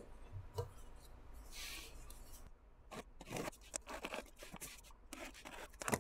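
Faint handling of a taped cardboard shipping box being opened: a knife slitting the packing tape, then short scrapes and taps as the flaps are worked open.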